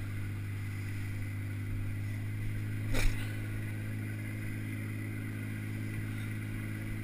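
Towboat's outboard engine droning steadily below the parasail. About three seconds in there is a brief falling squeak.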